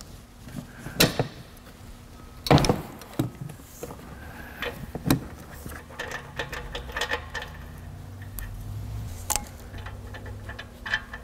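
Scattered metal clicks and knocks of a breaker bar, extension and seven-eighths socket working a rear oxygen sensor loose from the exhaust and lifting it out, the loudest about two and a half seconds in.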